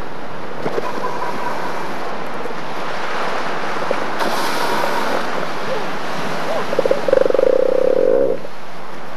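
Elephant seal giving a loud, pulsed, rasping belch-like call lasting about a second near the end, over a steady wash of surf and wind.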